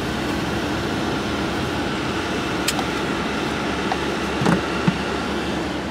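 Steady engine and road noise inside a moving car's cabin, with one short click about two and a half seconds in.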